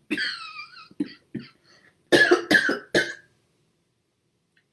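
A woman coughing into her hand: a few light coughs, then three loud coughs in quick succession about two seconds in.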